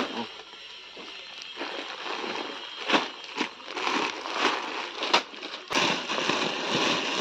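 Plastic bags of beads crinkling and rustling as they are handled and pulled from a pile, with many small crackles and sharper crinkles along the way.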